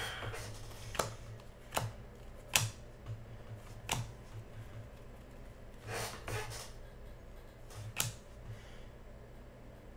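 Panini Contenders basketball cards being flipped through one at a time, each card slipping off the stack with a short, sharp snap; about seven snaps at uneven spacing, the strongest in the first four seconds.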